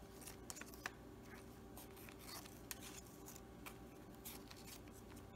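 Faint rustling and light scratching of string being unwound from the button-and-string tie of a kraft paper envelope, with a few soft ticks scattered through it.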